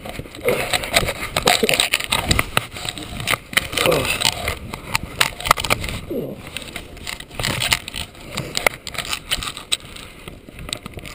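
Boots crunching through deep fresh snow, step after step at an uneven pace.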